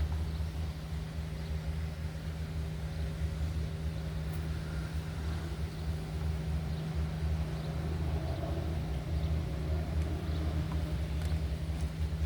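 Steady low mechanical hum, like a motor running, with a few faint small clicks.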